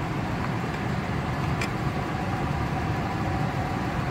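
Truck engine idling steadily close by, a low even rumble, with a single sharp click about one and a half seconds in.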